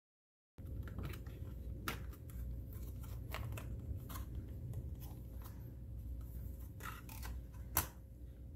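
Stiff clear plastic blister packaging being pried open and handled: scattered crackles and clicks of the plastic, with one sharp click near the end, over a low steady hum. The sound starts abruptly about half a second in.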